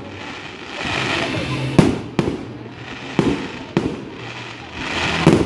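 Fireworks display: about five sharp bangs of shells bursting overhead, the loudest near the end. A hissing rush swells between them.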